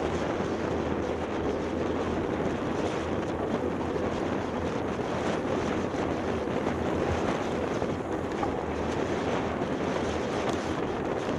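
Steady wind rushing over the microphone of a bicycle's handlebar camera while riding, with a constant road rumble underneath.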